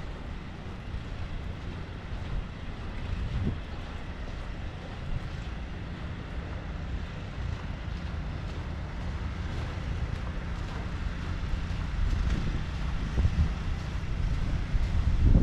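Wind buffeting the microphone: an uneven low rumble over a steady outdoor hiss, with stronger gusts near the end.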